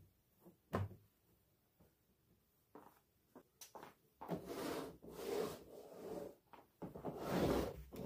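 Household handling sounds: a single knock just under a second in, a few light clicks, then several seconds of rubbing noise that swells and fades three times.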